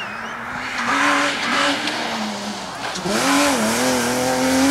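Subaru Impreza rally car's engine revving hard as it drives past, the pitch climbing about a second in, falling sharply about three seconds in, then rising again and holding high.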